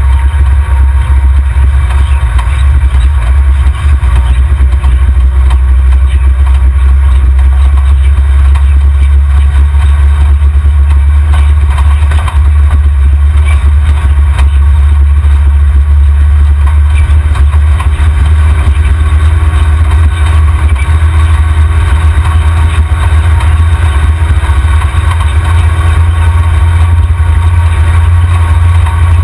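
Off-road buggy's engine running, picked up by a camera mounted under the chassis at the rear axle: a loud, heavy low rumble. A steadier engine note comes through about two-thirds of the way in.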